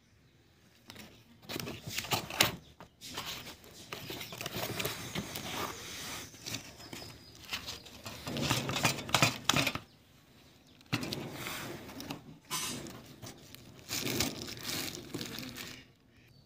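Cardboard shipping box being opened by hand: flaps scraping, bending and tearing in irregular bursts, with a few sharp clicks, and the plastic wrapping inside crinkling. There are short pauses between handlings.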